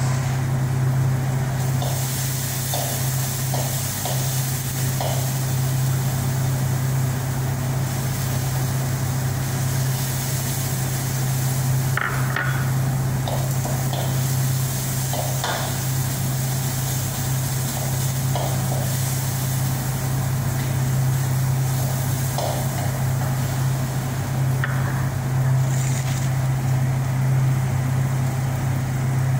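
Steady low hum with a hiss, as from a running motor or fan, with light clinks and clatters of kitchenware now and then.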